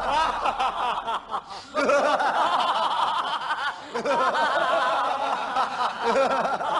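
Several people laughing together, with overlapping chuckles and snickers. The laughter drops off briefly between one and two seconds in, then picks up again.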